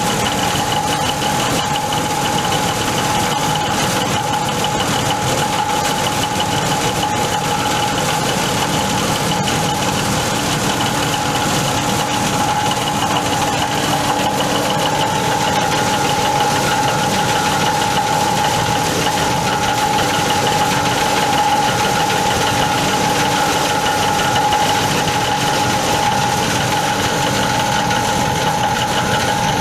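Foam and fabric shredding machine running steadily, its motor and cutter giving an even hum with a strong steady whine that does not change in pitch or level.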